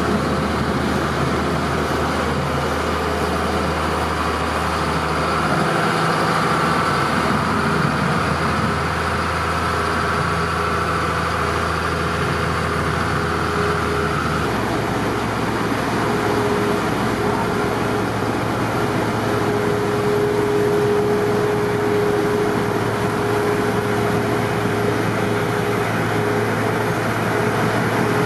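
Heavy diesel snow-clearing machinery, snowblower loaders, running steadily at work. About halfway through, the deep rumble drops away and a steady hum comes in.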